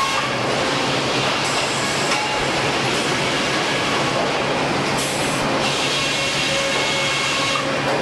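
Sawmill machinery running steadily: a large circular saw blade spinning at the timber deck over a constant mechanical rumble and hum. A higher hiss comes and goes a few times.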